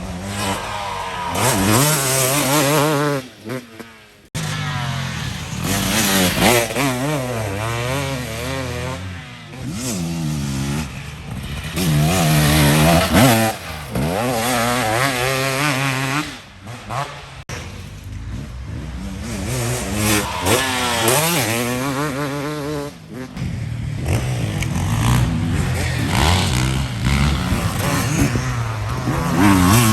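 Dirt bike engine revving hard and easing off again and again while being ridden, its pitch climbing and dropping several times, with a brief drop-off about three to four seconds in.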